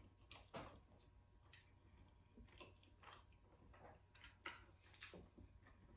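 Faint, scattered mouth clicks and smacks of someone eating with her fingers, chewing seafood-boil potatoes and corn. About a dozen short clicks, the two loudest near the end.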